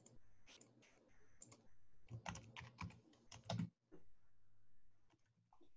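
Faint typing on a computer keyboard: a couple of single keystrokes, then a quick run of keys about two seconds in, the last few the loudest.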